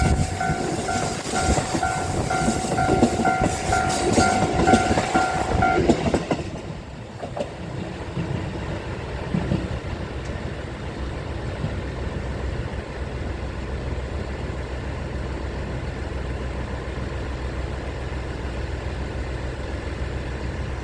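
Japanese railway level-crossing warning bell ringing with rapid, evenly spaced dings while a train passes with clicking wheels over the rail joints. About six seconds in the bell stops and the train noise dies down to a quieter, steady low rumble.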